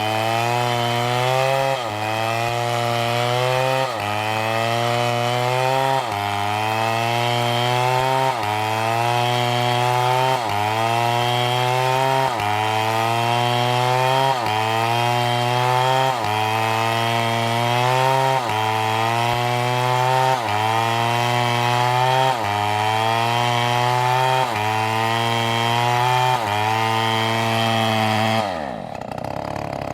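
Two-stroke STIHL chainsaw at full throttle cutting through a palm trunk. Its pitch dips under load and recovers about every two seconds, then the revs drop sharply near the end.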